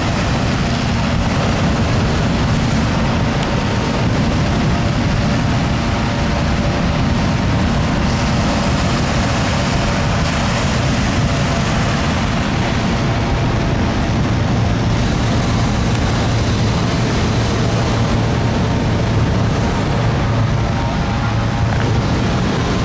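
A steady engine drone under a constant rushing noise, without a break. The low drone grows a little stronger in the second half.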